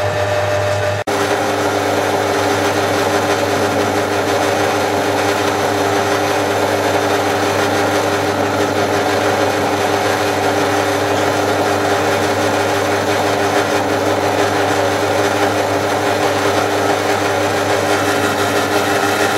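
Drill press motor running steadily while its twist bit cuts into a metal block clamped in a vise, with a constant hum under a harsh cutting hiss. There is a brief break about a second in.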